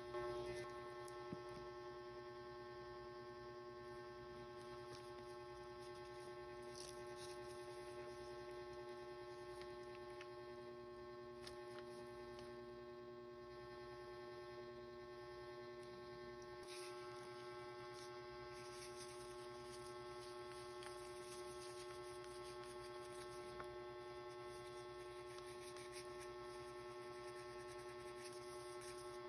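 Faint, steady electrical hum, one unchanging tone with several overtones, with a couple of faint clicks about a second in.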